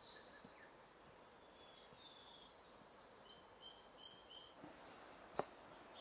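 Faint rainforest ambience with birds calling in short, high chirps through the middle, and one sharp footfall on the steps about five and a half seconds in.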